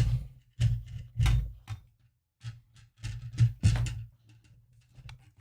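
Irregular knocks and clicks of a plastic ring light and its tripod being handled and adjusted, with about eight to ten separate clunks, some with a dull thud.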